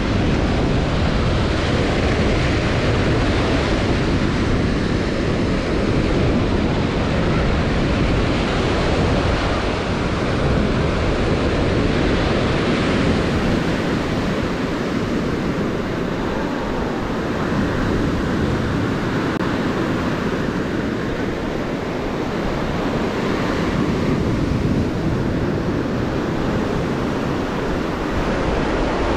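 Small surf breaking and washing up a sandy beach in a steady, rushing wash, with wind buffeting the microphone.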